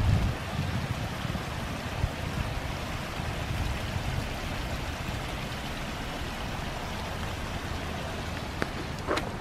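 Small rain-fed woodland creek running in a steady, even rush of water, with light rain about.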